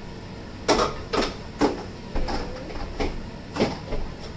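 Food containers being set down and moved about on refrigerator shelves: a run of about seven knocks and clatters.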